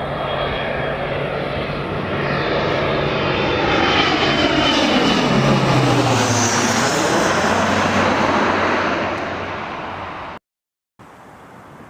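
Airliner passing low overhead: a loud engine rumble and whine with a swooshing, phasing sweep. Its pitch drops as it goes by about five seconds in, then it fades. It cuts off suddenly near the end, and after a brief gap faint, steady background noise follows.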